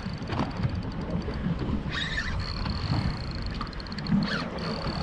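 Daiwa Certate 4000 spinning reel giving a fast, even, high-pitched clicking in runs broken by short pauses, under load from a hooked mahi-mahi. Wind rumbles on the microphone underneath.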